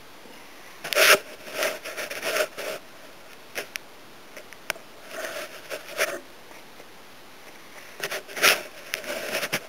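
Irregular short rustling, breathy noises close to the microphone, over a steady hiss.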